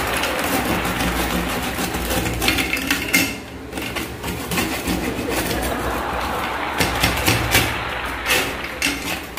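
Steel table knife scraping and clicking against a stainless steel plate as it pries off hardened dalgona sugar candy stuck fast to the plate. The sharp clicks come in short runs, a few seconds in and again near the end.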